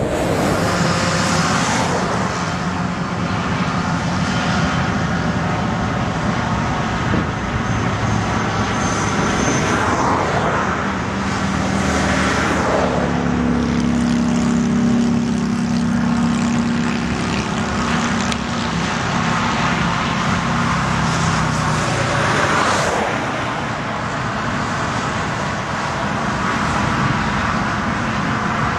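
Highway traffic: vehicles pass one after another, their tyre and engine noise swelling and fading, over a steady road roar with a low engine hum in the middle.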